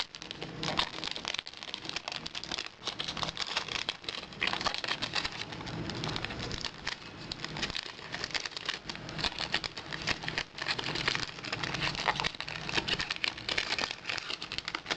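Cellophane wrapping on a perfume box crinkling and crackling steadily as it is peeled off by hand.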